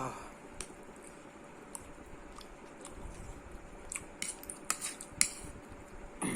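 A person chewing food close to the microphone: soft wet mouth sounds with scattered sharp clicks and smacks, busiest from about four to five seconds in.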